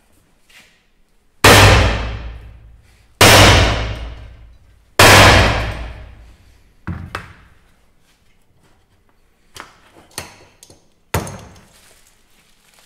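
Sledgehammer striking a crimping tool clamped in a steel bench vise, pressing a heavy cable lug onto a battery cable. Three hard, ringing metal clangs about two seconds apart, then a lighter knock, a few small taps and one more sharp strike near the end.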